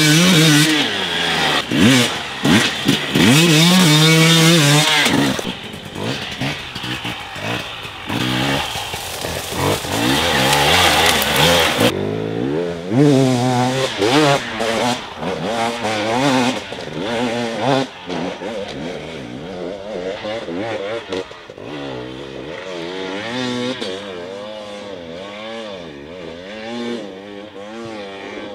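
Husqvarna TE300i's fuel-injected single-cylinder 300cc two-stroke engine revving up and down hard as the dirt bike is ridden off-road. It is loud and close for the first dozen seconds, then fainter and farther off.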